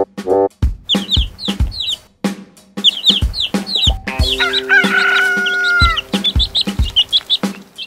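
Cartoon farm-bird sound effects: chicks cheeping in quick repeated chirps throughout, and a rooster crowing once in one long call about halfway through. A steady drum beat runs underneath.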